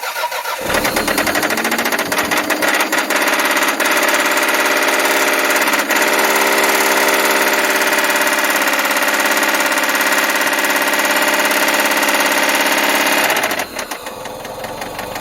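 Toyota MR2 engine catching right at the start and revving up, held at high revs with a rapid metallic knock, then dropping back to idle about thirteen seconds in. The knock is a worn connecting-rod bearing, the rod 'smacking around', with oil stabilizer (Engine Honey) added to quiet it.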